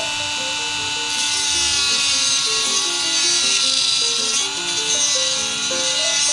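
Proxxon rotary tool running with a grinding stone, cutting into a plastic model kit bumper: a steady high motor whine with a grinding hiss that grows louder about a second in as the stone bites. Background music with a stepping melody plays over it.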